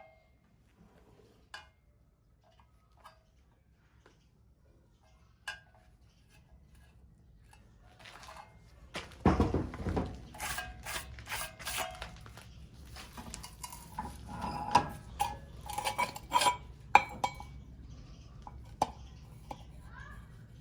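Small metal objects clinking and knocking as they are handled, with a few faint clicks at first and a denser clatter from about halfway through.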